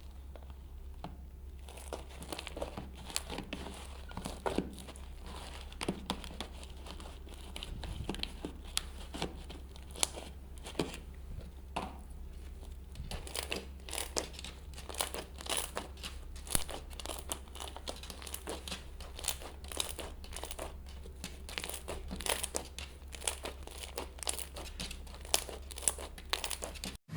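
Slime being squeezed and kneaded by hand, giving a dense run of small crackles and pops that gets busier partway through.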